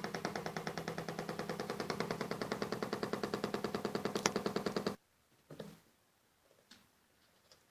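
Toy sewing machine running: a fast, even mechanical clatter of about twelve strokes a second over a steady motor hum, stopping abruptly about five seconds in. A couple of small knocks follow.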